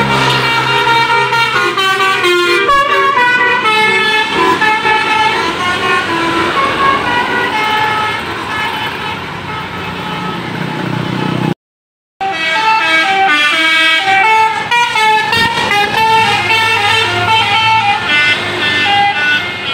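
Multi-tone 'telolet' bus horn, a Basuri-type set of electric trumpet horns, playing a melody of several overlapping notes that step up and down in pitch. The sound drops out completely for about half a second a little past halfway, then the tune resumes.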